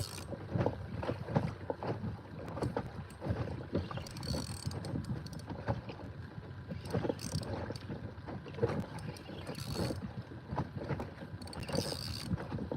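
Water lapping and knocking against a fishing kayak's hull, with wind on the microphone: irregular small knocks and splashes, and a brief hiss every few seconds.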